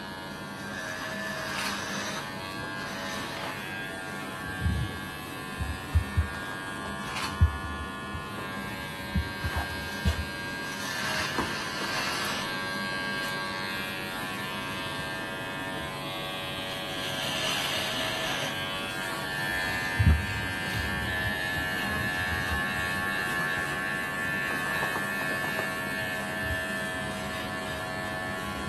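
Electric hair clippers running steadily while shaving the nape up under the hair, the buzz shifting slightly in pitch as the blade works, with a few brief knocks from handling.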